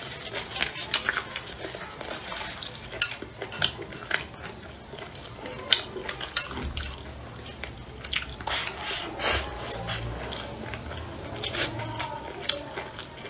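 Chopsticks clicking and scraping against a glazed ceramic bowl as rice and greens are picked up, in many sharp, irregular clicks.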